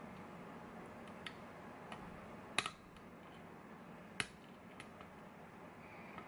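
Lock pick and tension wrench working the pins of a stock GeGe pin-tumbler lock: a few small sharp metallic clicks, the two loudest about two and a half and four seconds in.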